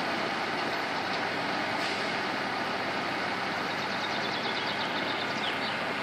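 Diesel engine of a MAN tipper truck running steadily as the truck reverses slowly. A quick run of faint high ticks comes in about four seconds in.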